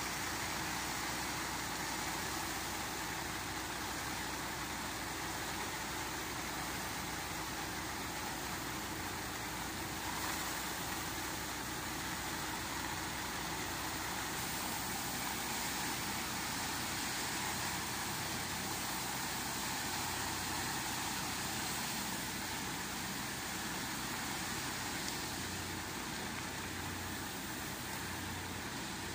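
Massey Ferguson 398 tractor's diesel engine running steadily as it works the trailer's tipping hydraulics, with a steady hiss of oats and barley pouring out of the raised trailer onto a heap.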